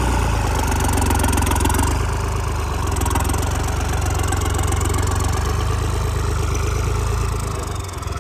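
Heavy diesel engine running steadily at idle.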